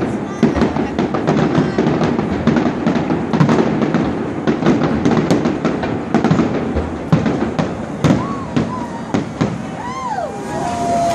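Aerial fireworks going off in a rapid, dense run of cracks and bangs that thins out near the end.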